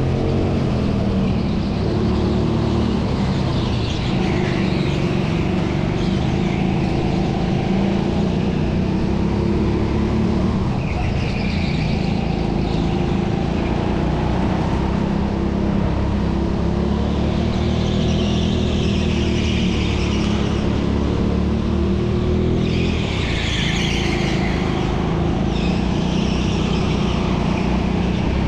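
Indoor racing go-kart's engine running hard on the track, its pitch rising and falling with the throttle through the laps, heard from on board the kart. Brief higher squeals of the tyres come through several corners.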